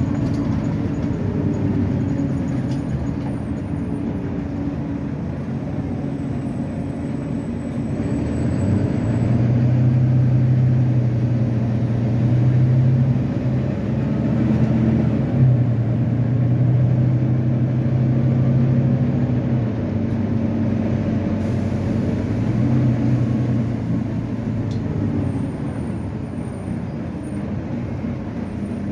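Volvo B9TL double-decker bus's diesel engine running with a low drone, which grows louder from about eight seconds in as the bus pulls away and eases off after about twenty seconds.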